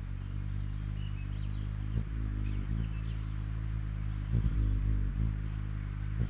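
Small birds chirping briefly now and then over a steady low hum, with a couple of soft knocks.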